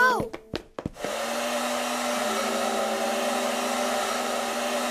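Cartoon sound effect: a few sharp clicks, then about a second in a small electric motor starts and runs steadily with a whirring, airy hiss.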